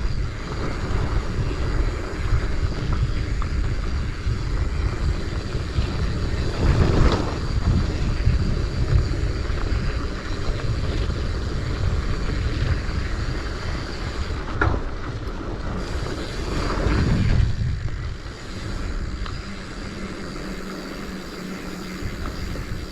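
Wind buffeting the microphone of a mountain biker riding a dirt trail, with a steady rumble that swells louder twice and eases off near the end.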